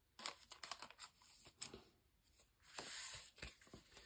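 Faint handling of trading cards and booster packs: scattered light clicks and taps, and a short rustle about three seconds in.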